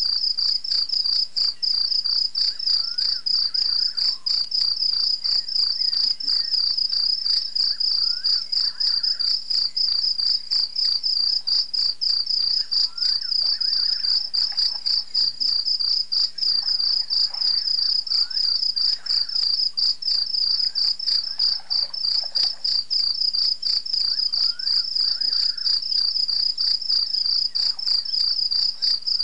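Dense, steady chorus of crickets chirping in a fast, even pulse, with fainter calls rising and falling every few seconds underneath.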